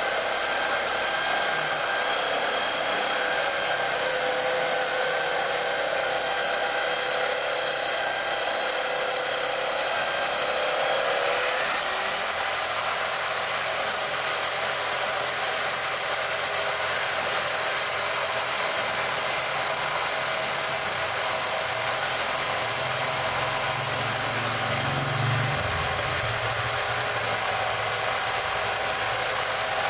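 Home-built sanding machine powered by an electric hand drill running steadily, its motor whine mixed with the hiss of abrasive on a jati landa board. The motor's pitch shifts slightly about twelve seconds in.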